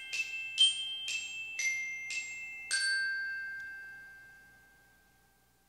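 Edited-in mallet-percussion jingle of the kind laid under a subscribe-button animation: a run of bright, bell-like struck notes about two a second, ending on a last note that rings out and fades away.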